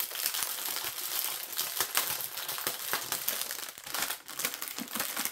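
Clear plastic packaging crinkling and rustling in quick small crackles as a bag of diamond-painting drill strips is handled and opened.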